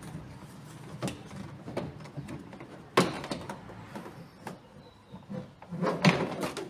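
Inner trim panel of a VW Golf Mk6 boot lid being worked free by hand: a few sharp clicks and knocks about 1, 3 and 6 seconds in, with rustling handling noise between them, as the last retaining clips let go.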